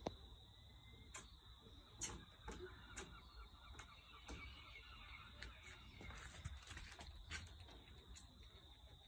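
Near silence: faint outdoor background with a thin steady high tone and a few soft, scattered clicks.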